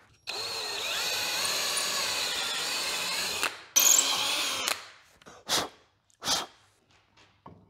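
Cordless drill boring a 5/32-inch pilot hole into a wooden plank: the motor runs steadily for about three seconds with its pitch wavering under load, then a shorter, louder run follows a second later. A few brief knocks come near the end.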